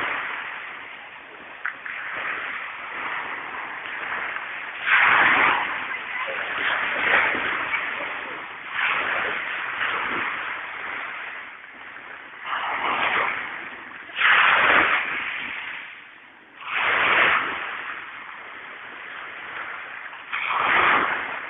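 Waves breaking and washing over a pebble beach, in irregular surges a few seconds apart.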